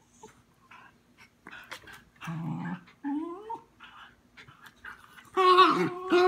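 Two dogs, one a smooth fox terrier, play-fighting with soft scuffling: a low play growl about two seconds in, a short rising whine, then a loud pitched growling whine near the end.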